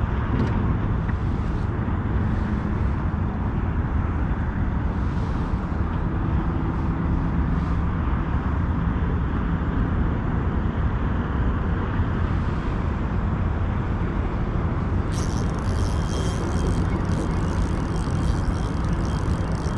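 Steady low outdoor rumble. About fifteen seconds in, a crackling hiss joins it.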